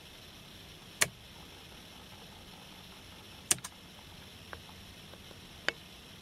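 A few sharp clicks at irregular intervals, one of them a quick double click, over a steady faint hiss.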